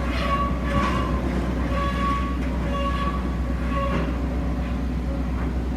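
Rotary drilling rig running: a steady low engine rumble, with a high squealing tone that sounds on and off about once a second.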